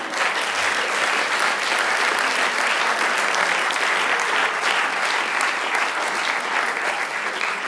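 A theatre audience applauding, a dense, steady clapping of many hands.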